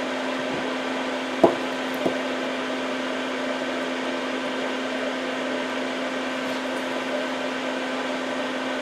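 A steady electrical hum with a fan-like whir, with two light clicks of hand tools being handled on the work surface about one and a half and two seconds in.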